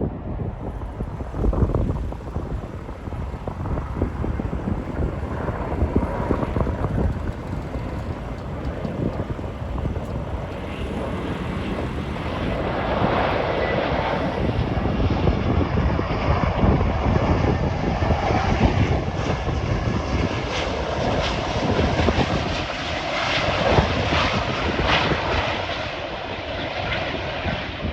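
Jet engines of a Qantas Boeing 737 running, a steady rushing noise that grows louder and brighter about halfway through.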